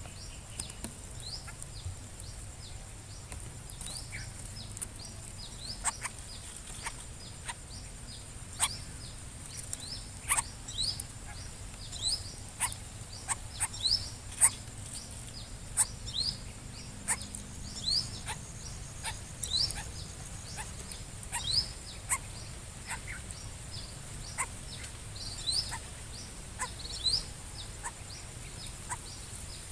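Birds chirping outdoors: short, high, upward-flicking chirps repeated irregularly, often several a second, with occasional sharp clicks, over a steady high hiss.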